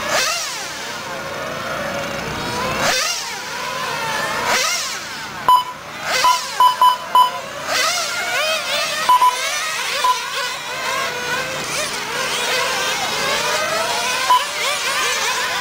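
A pack of 1/10 scale nitro on-road RC cars racing, their small glow engines whining up and down in pitch as they accelerate and brake through the corners. Short, loud electronic beeps at one pitch come in quick clusters about five seconds in, again around nine seconds, and once near the end.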